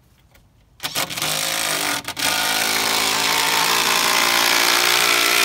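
Power driver driving a long 4-inch screw into a cedar porch post. It starts about a second in, stops for a moment near two seconds, then runs steadily on.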